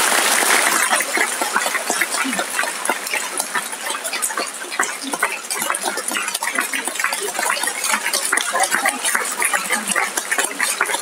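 Audience applause: dense clapping for about the first second, then thinning into many scattered, irregular claps, with faint murmured voices.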